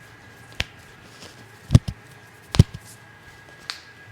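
Joint pops during a chiropractic adjustment: a sharp crack about half a second in, a close pair near two seconds, and the loudest pop about two and a half seconds in, followed at once by a smaller one.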